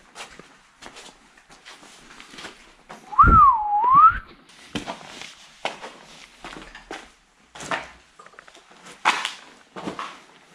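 Footsteps scuffing across a gritty, debris-strewn floor, and about three seconds in a loud, short whistle that rises, dips and rises again.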